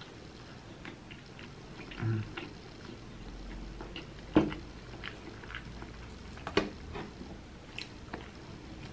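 A person chewing a mouthful of cheesy pizza, with scattered small mouth clicks and a couple of louder sharp smacks about four and six and a half seconds in.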